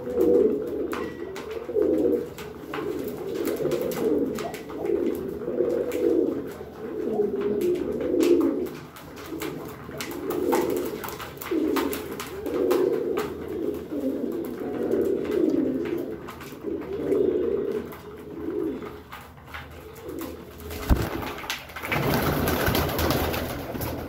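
Domestic pigeons cooing over and over, a low coo roughly every second, with light clicks and taps among the calls. Near the end comes a single thump, then a couple of seconds of broad rustling noise.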